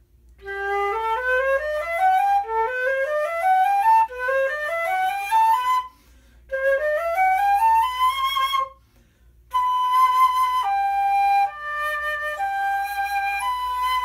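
Haynes concert flute with an N-cut headjoint, which has a steep, straight-down embouchure wall, played solo. It plays several quick rising scale runs, each starting a little higher, with two short breaths between them. Then come slower held notes of a melody.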